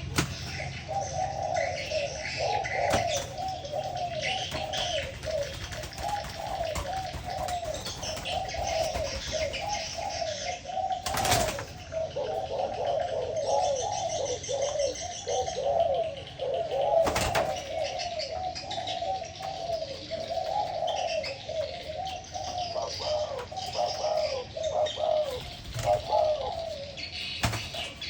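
Spotted doves cooing over and over in overlapping phrases, as in a cooing contest, with smaller birds chirping faintly above them. Two brief sharp knocks cut in, about 11 and 17 seconds in.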